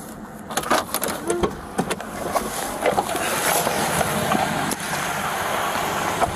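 Clicks and knocks of a Dodge patrol car's door opening and the officer climbing out, loudest in the first three seconds. After that comes a steady rushing outdoor noise on the body-worn microphone.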